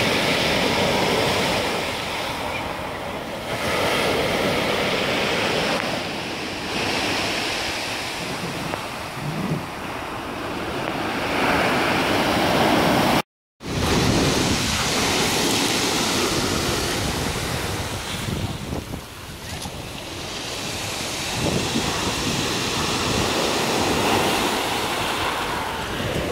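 Sea surf breaking and washing up a pebble beach, swelling and ebbing every few seconds, with wind buffeting the microphone. The sound cuts out for a moment about halfway through.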